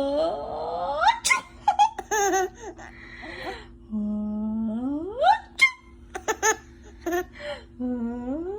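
A woman's playful fake sneezes: a held voice rising steeply into a sharp burst, twice, with a third wind-up starting near the end. Between them a baby giggles and laughs in short bursts.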